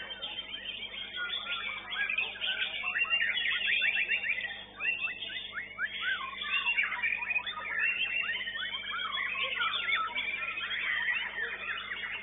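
Many caged songbirds singing at once, a dense tangle of overlapping whistles, rapid trills and chatter, including the white-rumped shama in the foreground cage. The chorus drops briefly a little before halfway, then carries on.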